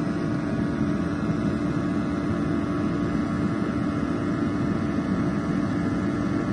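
EOGB Sapphire oil-fired boiler's burner running steadily, a constant rush of fan and flame with a low hum, firing during combustion setup with the fan at 75%.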